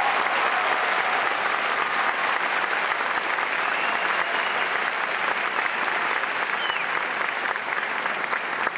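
Audience applauding steadily, the clapping easing off a little near the end.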